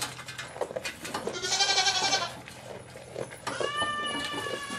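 A goat bleats twice: first a short, trembling bleat about a second and a half in, then a steadier, longer bleat near the end.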